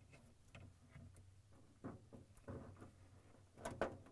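Faint plastic clicks and handling noises as the ice maker's wire-harness plug is pushed into its socket on the freezer wall, the loudest two clicks close together near the end.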